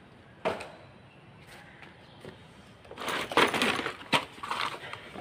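A single knock about half a second in, then from about three seconds in a run of crackling rustles and sharp clicks as plastic bags, packaging and other discarded items are rummaged through by hand.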